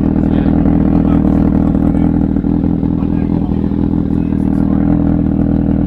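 Kawasaki Ninja ZX-6R's inline-four engine idling steadily through an Austin Racing carbon slip-on muffler, a loud, even exhaust note with no revving.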